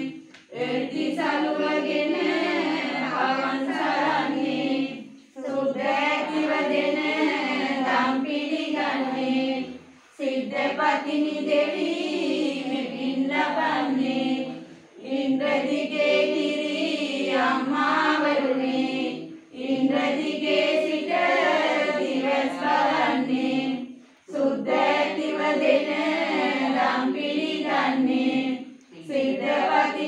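Several women chanting a prayer together in unison, in sung phrases about five seconds long, each followed by a brief pause for breath.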